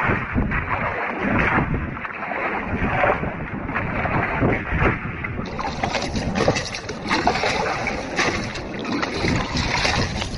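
Water splashing and sloshing in irregular strokes as a rock pool is bailed out to drain it.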